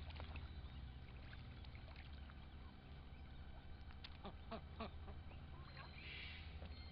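Young ducks swimming, with a few soft, short duck calls about four to five seconds in, over a steady low rumble and faint water sounds.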